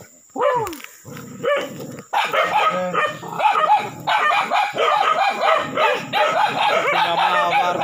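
Several dogs barking at a cornered monitor lizard: a couple of single barks at first, then from about two seconds in a dense, continuous run of rapid barks.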